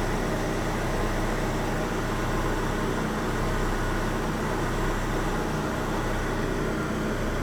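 Chevrolet Corsa engine running steadily, a continuous mechanical noise with a low hum under it, on a car whose starter motor has a grinding fault.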